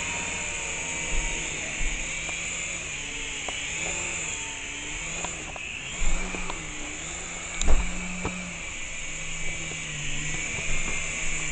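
Small RC helicopter's motor and rotors whining steadily in a hover, the pitch wavering up and down with throttle corrections. A few sharp knocks past the middle, the loudest near the end of the second half.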